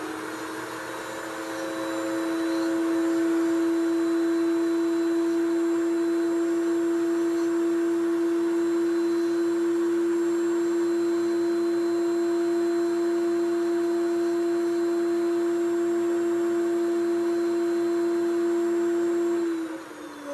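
Foredom SR flex-shaft motor driving a surgical handpiece with a 702 bur, cutting a trough in gypsum: a steady high whine that gets louder about two seconds in, holds, then stops near the end, its pitch falling as the bur spins down.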